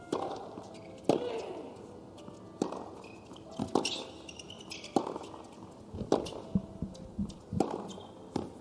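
Tennis ball struck by rackets on a hard court: a serve, then a rally of sharp racket hits about a second or a second and a half apart, with softer ball bounces and footsteps between them.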